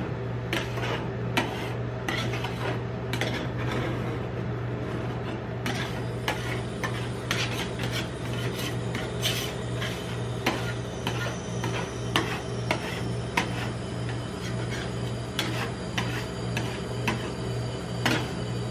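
Steel spatula scraping and tapping on a steel rolled-ice-cream pan, clearing off leftover frozen ice cream, with many sharp clicks and scrapes over a steady low hum.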